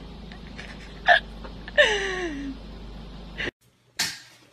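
A voice gives two short cries, the second sliding down in pitch. A steady background hum cuts out suddenly, and a brief burst of noise follows near the end.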